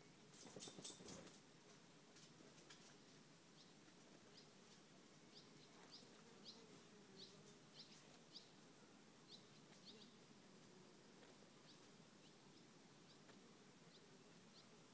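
Faint, short, high chirps of a small bird, each a quick downward slide, repeating at irregular intervals in a near-silent garden. A brief burst of rustling and crackling about half a second in is the loudest sound.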